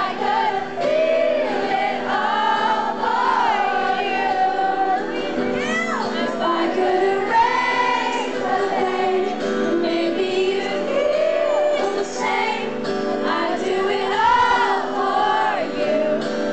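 Live pop concert music: sustained, sliding sung melody over the band's steady chords.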